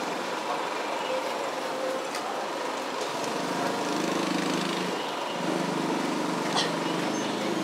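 Steady outdoor street hum of traffic, with a small engine running close by from about three and a half seconds in.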